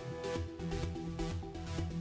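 Background electronic music with a steady beat and repeating low notes.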